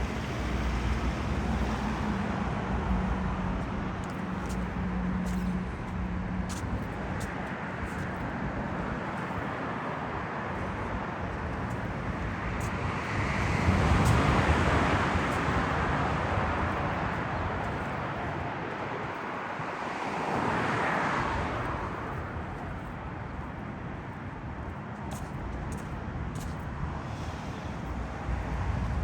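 Road traffic on a city street: a steady wash of car noise, with one vehicle passing loudly about halfway through and another a few seconds later. A low engine hum runs under the first few seconds.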